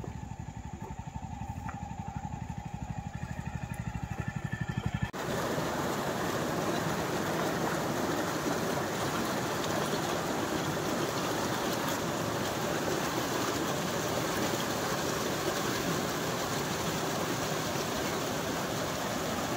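Jawa 42 motorcycle's single-cylinder engine running with a low, even pulse for about five seconds. It then gives way abruptly to a steady, loud rushing noise.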